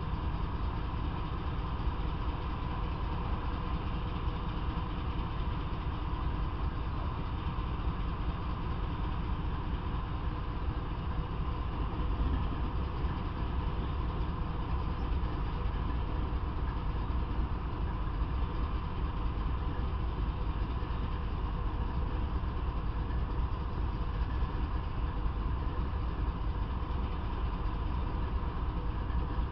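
Diesel freight locomotive idling while stopped: a steady, low engine sound that holds an even level throughout.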